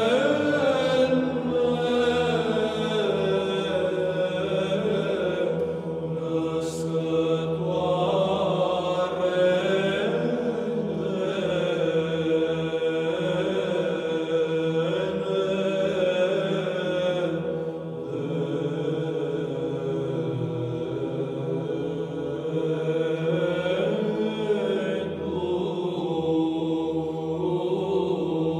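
Orthodox church chant: voices singing a continuous melody without pause.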